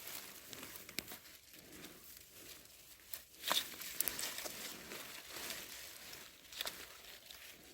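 Faint rustling and crackling of leaves and plant stems, with scattered small snaps and a slightly louder crackle about three and a half seconds in.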